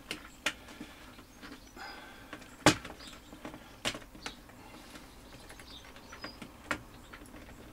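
A modelling knife cutting and picking at glue inside a plastic radio-transmitter case: scattered small clicks and scrapes of blade on plastic, the sharpest a little under three seconds in.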